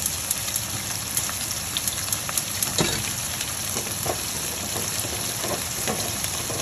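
Shrimp searing in hot oil in a sauté pan: a steady sizzle with scattered small crackles and pops of spitting oil, one pop a little louder near the middle.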